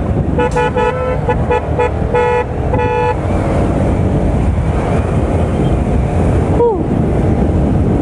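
A vehicle horn honking in a quick run of short toots, then two longer blasts, over the first three seconds, over the steady rumble of a motorcycle ridden through traffic with wind on the microphone.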